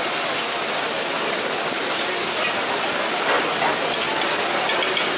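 Oyster-omelette batter sizzling steadily on a hot flat iron griddle as it is poured over oysters and shrimp and spread with a metal spatula, with a few short spatula scrapes near the end.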